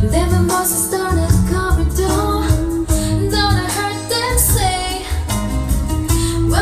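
A song sung by a woman over guitar, with a strong bass line, played as a listening test of a home-built class-D amplifier.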